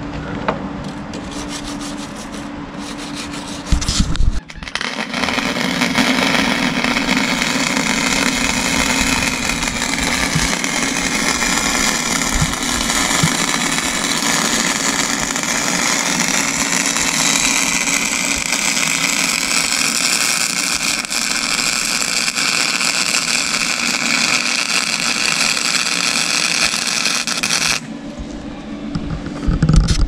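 Electric arc welding on the lawnmower's steel deck, a steady crackling hiss as a patch plate is welded over the torn wheel mount. The arc strikes with a sharp burst about four seconds in and cuts off a couple of seconds before the end.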